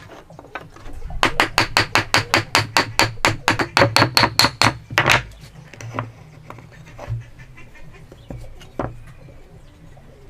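A hammer tapping rapidly on wood or a chisel, about six even strikes a second for some four seconds. A heavier blow ends the run, and a few single knocks follow.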